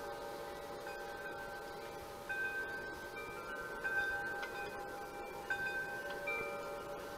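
Chimes ringing: clear metal tones at several pitches, set off at irregular moments, each ringing on and overlapping the others.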